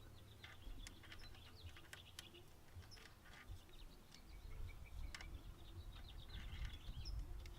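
Faint scattered clicks and small taps of hand tools on the engine, with faint bird chirps and a low rumble underneath.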